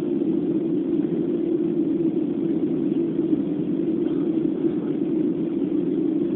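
Steady cabin noise of a Boeing 737-800 jet airliner in flight, an even low drone of engines and rushing air heard from inside the cabin.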